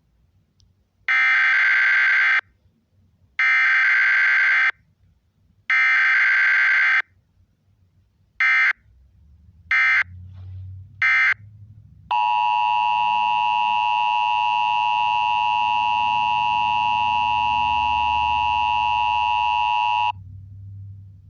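Emergency Alert System signal for a tornado warning: three loud, buzzing digital data bursts of about a second each, then three short bursts. These are followed by the steady two-tone EAS attention signal, held for about eight seconds before it cuts off.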